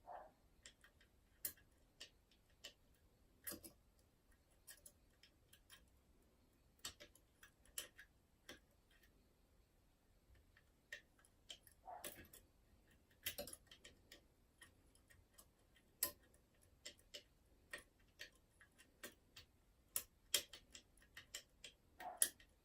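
Irregular small metallic clicks and ticks of a lock pick and tension wire working the levers inside a Union Strongbolt 5-lever mortice lock, as the levers are lifted and set one by one. A few louder clicks come about halfway through and again near the end.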